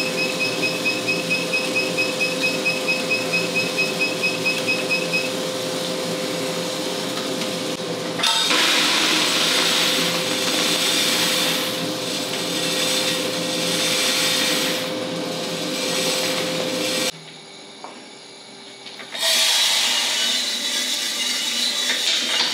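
1 kg Mill City drum coffee roaster running: a steady motor hum with a fast ticking, about four ticks a second, in the first few seconds. A louder rushing noise sets in suddenly about eight seconds in. Near the end the sound drops away abruptly for about two seconds, then the rushing returns.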